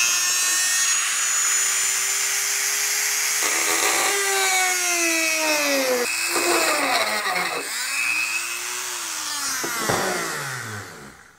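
Dremel rotary tool with a cutoff wheel cutting notches into the edges of a fishfinder mount's base plate: a high-pitched motor whine whose pitch sags and climbs back several times as the wheel bites into the plate, fading out near the end.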